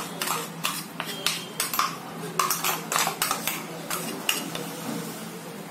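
A spoon scraping and knocking inside a mixer-grinder jar, clearing ground coconut masala paste out into a pan: a quick run of clicks and scrapes, about two or three a second, dying away after about four seconds.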